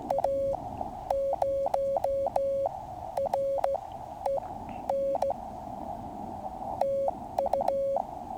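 Morse code (CW) from a QCX mini transceiver: one steady tone keyed in dits and dahs in several short groups, over a constant band of receiver hiss.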